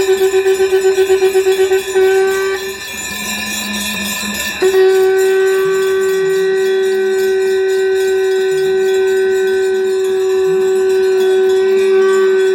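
Conch shell (shankh) blown in a long held note, at first wavering rapidly, breaking off for about two seconds, then held steady again, with bells jingling alongside.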